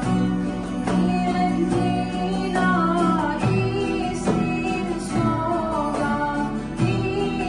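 Female soloist singing a Bosnian ilahija (devotional song), accompanied by strummed acoustic guitars, keyboard and accordion, with the guitars strumming in a steady rhythm under the melody.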